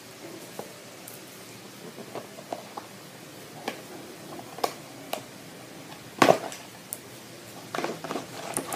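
Small cardboard toy box being handled and pried open by hand: scattered taps, clicks and scrapes of cardboard, the loudest cluster a little after six seconds in and a busier run of rustling near the end.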